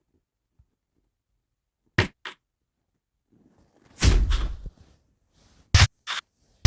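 Punch sound effects from a video-editing app's library played back one after another: a quick double hit, then a heavier, booming punch with a short decay, then another quick double hit.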